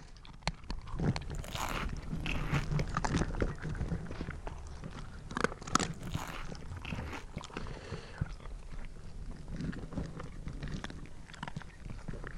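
Zombie chewing and biting: wet, irregular crunching and gnawing, loudest about two and six seconds in.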